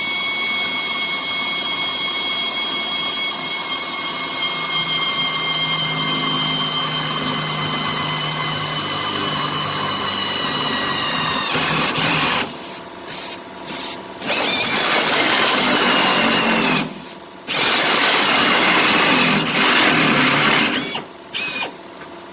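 Drill cutting through steel subframe sheet metal with a step bit: one long run with a whine that sinks slowly in pitch, stopping about twelve seconds in. It then runs again in two stretches and ends in a few short bursts.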